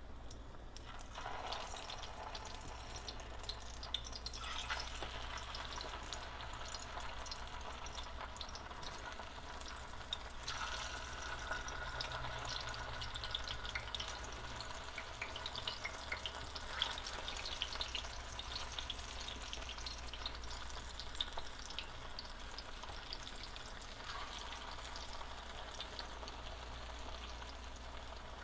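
Pieces of cassava (mogo) frying in hot vegetable oil, a steady sizzle full of small crackles and pops. The sizzle flares up several times as more pieces are dropped into the oil.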